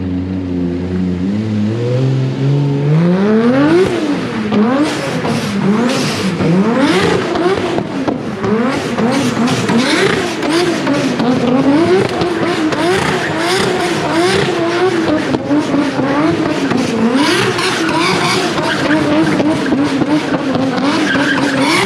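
Nissan 180SX's 1JZ straight-six being driven hard: the revs climb sharply about three seconds in, then rise and fall over and over as the throttle is worked, with tyre noise from the car sliding.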